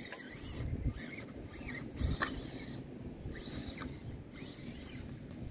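Axial SCX24 1:24 RC crawler's small brushed motor and metal transmission gears whining as it climbs over a rock and roots, the pitch rising and falling with the throttle. There is a sharp knock about two seconds in.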